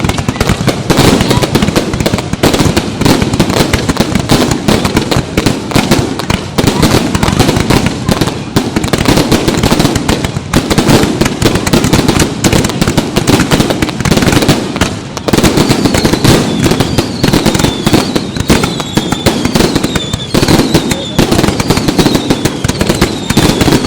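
Loud, dense fireworks barrage: rapid, unbroken bangs and crackling. In the second half, a series of falling whistles from the shells runs through the bangs.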